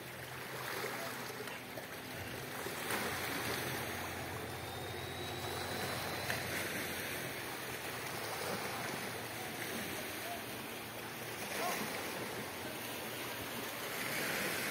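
Small sea waves washing against a rocky shore, a steady wash that swells and eases, with a low steady hum underneath that fades out about six seconds in.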